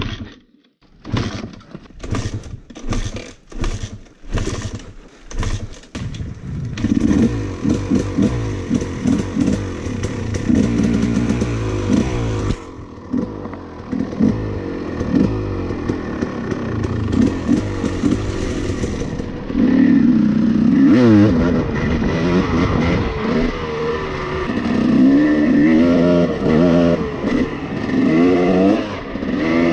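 Husqvarna TC 300 dirt bike engine: a rapid string of short bursts with gaps between them over the first six seconds, then running continuously from about seven seconds in, and revving unevenly and louder from about twenty seconds in.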